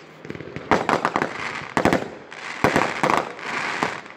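Aerial fireworks going off: a quick string of sharp bangs, with crackling from the bursting stars in between.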